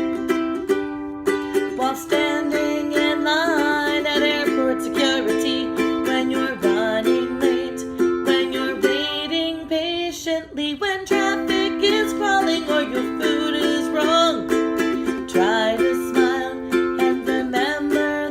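Background music, with steady held low notes under a wavering, gliding higher melody.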